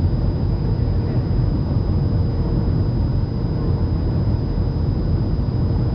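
Steady cabin noise inside a Boeing 737 airliner on its landing approach: jet engines and rushing airflow making an even low rumble, with a thin steady high whine above it.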